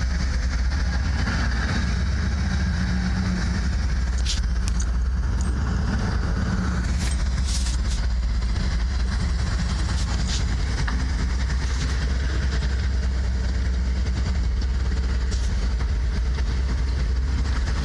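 A heavy engine running steadily at idle with a constant low drone, with a few faint clicks over it.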